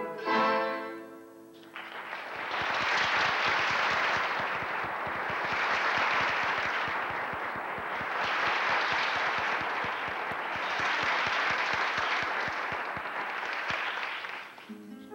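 A theatre audience applauding for about twelve seconds after the music's final chord dies away; the applause tails off near the end.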